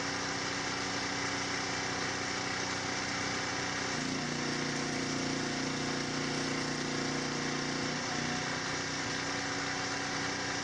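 A steady mechanical drone, like a motor running, over an even hiss, with small shifts in pitch about four and eight seconds in.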